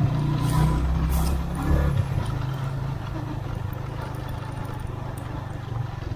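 Motorcycle engine running steadily while being ridden. The engine note eases slightly about two seconds in.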